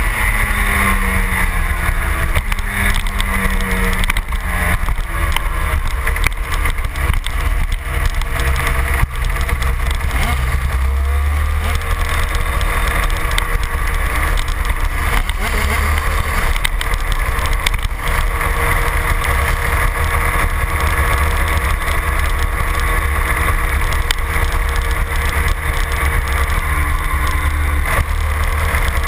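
Yamaha TZ250 250cc two-stroke racing engine of a superkart running hard at racing speed, its revs falling and climbing again with the gear changes and corners. Heavy wind rumble on the on-board microphone.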